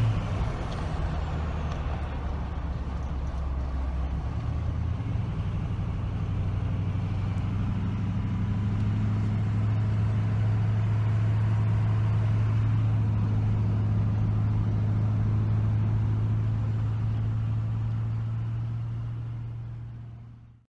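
Engine of a vehicle towing a grain wagon, running steadily on the road with a deep, even hum. Its lowest rumble eases about four seconds in, and the sound fades out near the end.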